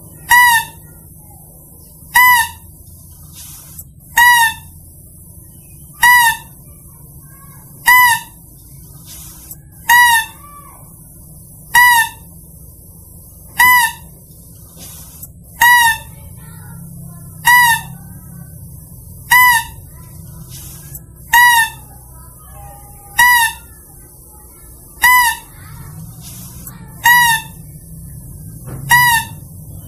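Lure call for lesser mouse-deer (kancil): a short, high-pitched call that rises and falls, repeated evenly about every two seconds, over a faint low hum.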